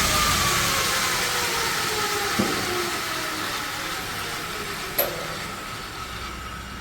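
Abrasive belt grinder machine winding down: a hiss fades steadily while a faint whine slowly falls in pitch. Two sharp clicks come about two and a half seconds apart.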